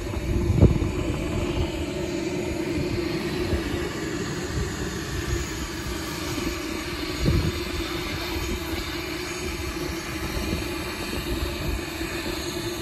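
The model turbine engine of a BVM 1/5-scale F-16 jet in flight gives a steady jet rush. Wind buffets the microphone, with the strongest gusts about half a second in and again after seven seconds.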